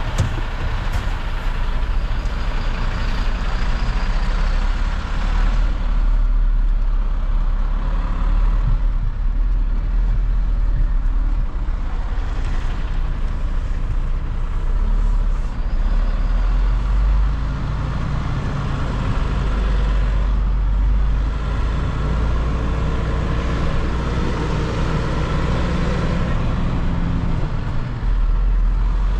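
Mercedes-Benz Atego 1024 truck's four-cylinder diesel engine running as the truck drives, heard from inside the cab, its note rising and falling with speed.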